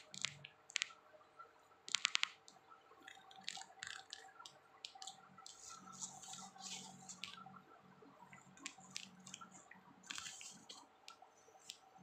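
Chili crab being eaten by hand: fingers work the crab pieces in sticky sauce, with clicks and cracks from the shell, including a quick run of clicks about two seconds in. Wet sucking and chewing sounds come in short bursts.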